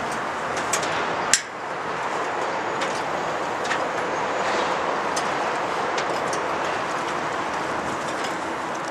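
Footsteps on a steel grating gangway: scattered light clicks and clanks over a steady rushing background noise, with one sharp clank about a second in.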